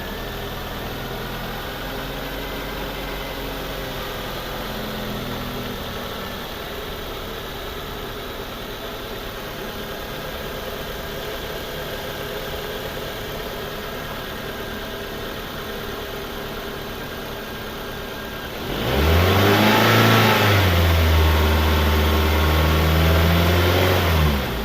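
Car engine idling steadily, then revved up about 19 seconds in, held at higher revs for several seconds, and let back down near the end.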